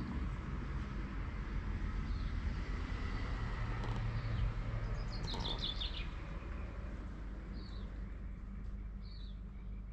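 Small birds chirping in short clusters of quick high notes, several times, over a steady low rumble.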